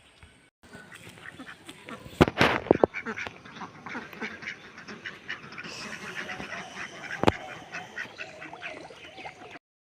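Ducks quacking, many short calls with a loud cluster about two seconds in and another loud call a little after seven seconds; the sound cuts off abruptly near the end.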